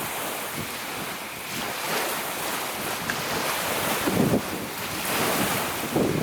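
Strong wind blowing against the microphone: a steady rushing noise with low gusts buffeting about four seconds in and again near the end.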